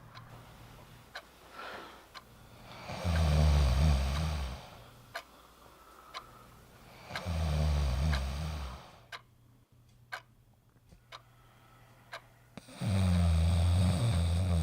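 A person snoring loudly: three long snores, each one and a half to two seconds, about four and a half seconds apart. Between the snores a faint ticking goes on at about once a second.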